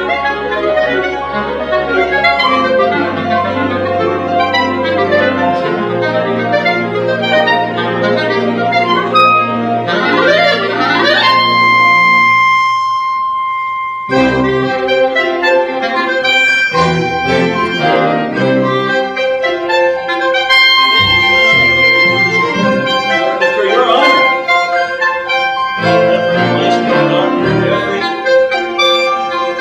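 Live orchestra playing lively classical music. About twelve seconds in, one held note sounds almost alone for about two seconds, then the full ensemble comes back in.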